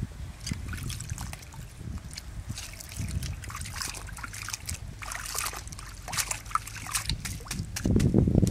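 Hands swishing and rinsing lettuce leaves in a steel basin of water: repeated small splashes, sloshes and drips, with a louder low rumble near the end.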